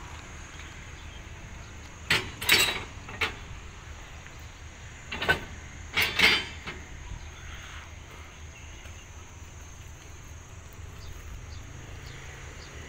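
Two clusters of loud metallic clanks from railway rolling stock, a few knocks each, about three seconds apart. A steady low hum and a steady high insect buzz run under them.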